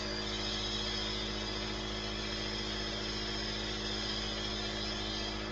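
Nebulizer's electric air compressor running steadily: a constant hum with a hiss of air above it.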